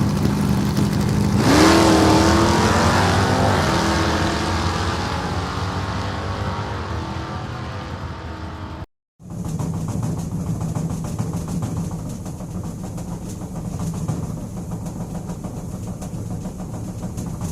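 Car engine idling, revved once about a second and a half in, its pitch rising and then falling away. After a sudden short gap near the middle, an engine idles steadily again.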